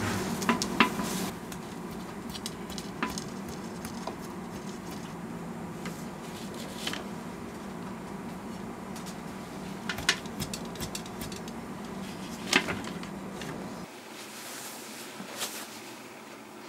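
Light scattered taps and soft rustling of hands handling silk dusted with sawdust (hikiko), over a steady low hum that stops about 14 seconds in.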